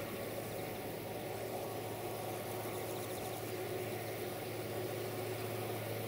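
GM diesel locomotive's engine running with a steady low drone as the train approaches at a distance, with no horn sounding.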